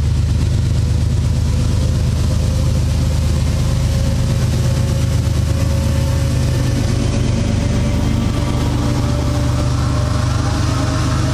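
CSX diesel freight locomotives passing close by under power: a loud, steady heavy engine drone, with a fainter tone that rises slowly in pitch.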